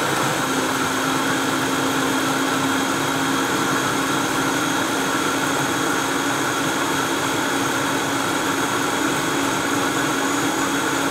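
Vitamix high-speed blender motor running steadily while blending a smoothie at about half speed; its hum steps up in pitch about half a second in, then holds steady.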